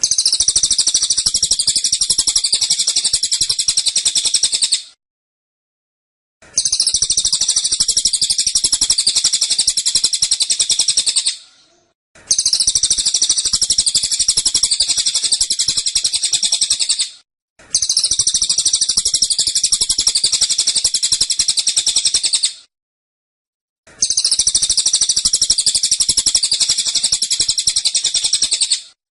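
Cililin bird singing its 'tembakan' song: dense, rapid-fire high notes delivered in five bursts of about five seconds each, with short silences between.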